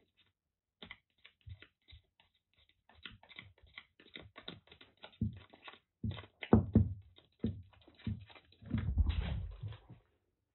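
Kitten scratching with its claws: quick, irregular clicks and scrapes, with a few heavier thumps and a longer burst of scrabbling near the end.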